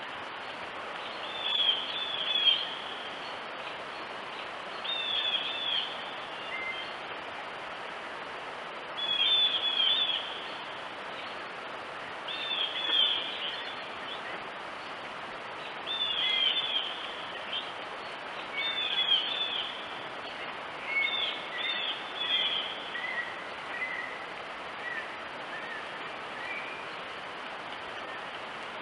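A songbird singing the same short phrase of high notes over and over, roughly every three to four seconds, with a few softer, lower notes toward the end, over a steady hiss.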